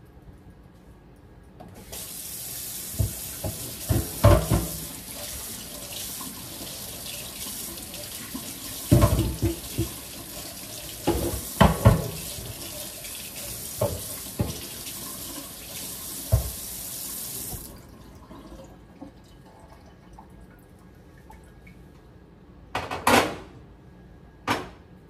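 Kitchen tap running into the sink for about sixteen seconds, with several sharp knocks and clatters while it runs. The water shuts off, and two more loud knocks come near the end.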